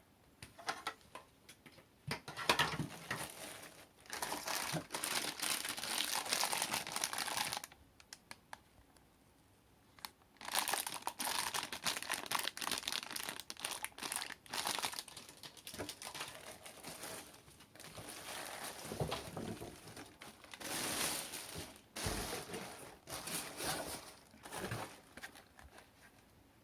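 Packaging crinkling and rustling as it is handled while the vacuum cleaner's contents are unpacked, in two long stretches with a short pause between.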